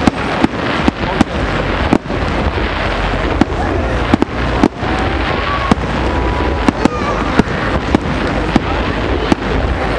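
Fireworks display: a rapid, irregular run of sharp bangs from bursting shells, about two a second, over a continuous crackle and hiss.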